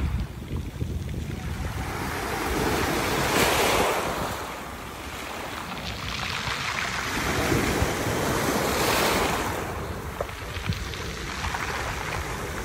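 Small waves breaking and washing up a pebble beach, the surf hiss swelling twice, about five seconds apart, with wind rumbling on the microphone underneath.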